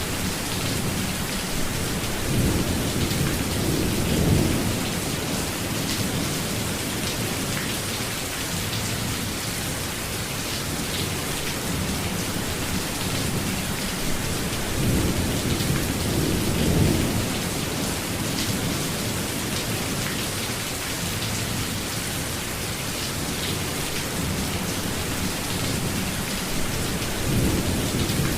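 Steady rainfall hissing without a break, with low rumbles of thunder swelling up three times.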